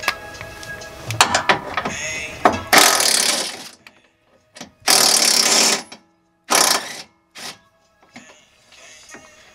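Cordless power tool running in four short bursts, spinning out the 10 mm bolts that hold the radiator in, after a few seconds of scattered clicks and rattles of tool on metal.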